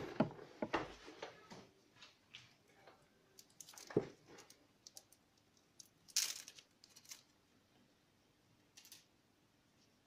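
Small handling noises of objects on a desk: a scatter of light clicks and knocks, with a sharper knock about four seconds in and a short rustling scrape about six seconds in.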